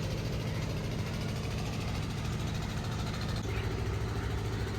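Steady low drone of an engine running.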